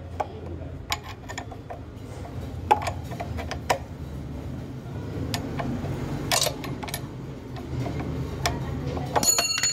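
Steel spanners clicking and knocking against a nut and bolt on a pump's flange as the bolt is tightened, irregular sharp ticks over a steady low hum, with a brief rapid clatter near the end.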